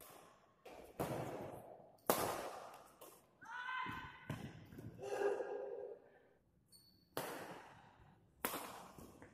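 Badminton racket strings hitting a shuttlecock in a rally, a series of sharp cracks that ring out in the echoing hall, the loudest about two seconds in and near the end. Short shouts from the players come in the middle, around the smash.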